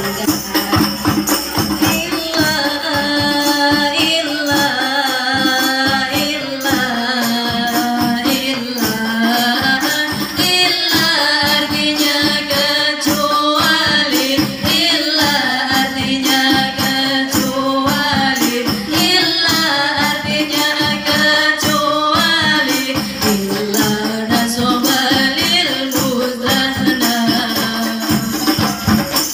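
A women's group singing a sholawat, an Islamic devotional song, to a steady beat of hand-struck frame drums.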